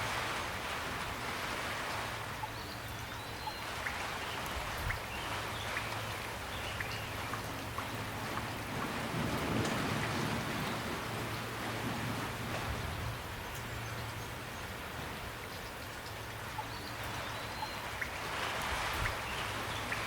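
Steady rain falling, an even hiss with many scattered individual drops ticking on a surface. It swells slightly around the middle and again near the end.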